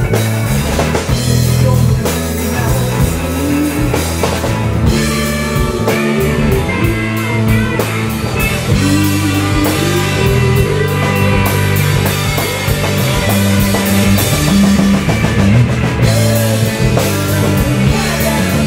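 Live rock band playing an instrumental passage with no vocals: electric guitars, bass guitar and a drum kit keeping a steady beat, with lead notes that slide up and down in pitch.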